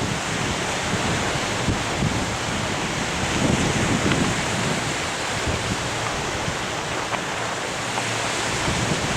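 Wind buffeting the microphone over the steady wash of sea surf, with gusts of low rumble swelling and easing.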